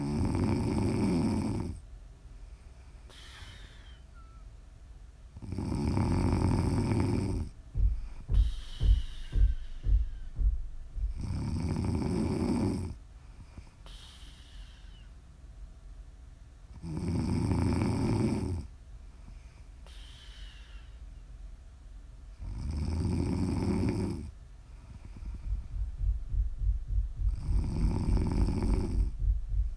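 A woman snoring in her sleep: six long snores, one about every five to six seconds. Twice between snores comes a quick, low fluttering rattle.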